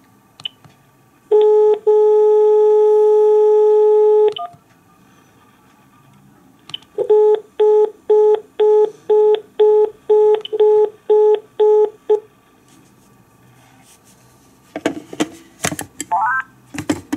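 Cordless DECT telephone handset sounding a steady dial tone for about three seconds, then a fast repeating beep of the same pitch for about five seconds. Near the end there are clicks and clatter as the handset is seated in its charging base, with a short rising beep.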